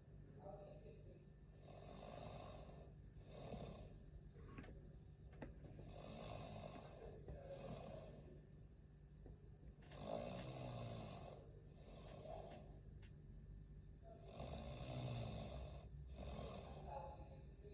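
A man snoring in his sleep: rasping snoring breaths every couple of seconds, a few of them carrying a low rattling tone.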